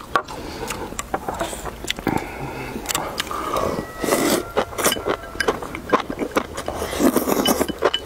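Chopsticks clicking and scraping against porcelain bowls as people eat shrimp-slice soup, with slurping and chewing; the slurps come about halfway through and again near the end.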